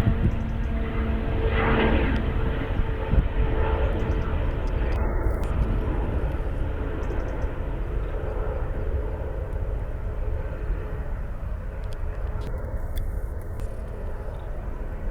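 Engines of a large Antonov cargo aircraft, a steady heavy rumble with a faint hum on top that slowly fades as the plane moves away.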